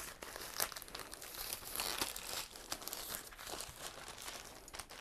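White plastic poly mailer and its packing crinkling and rustling as the bag is opened and handled, in many short irregular crackles.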